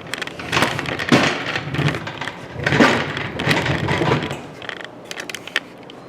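Handling noise of tools and small metal parts being moved and set down on a workbench: a few seconds of clattering and rustling, then several sharp clicks near the end.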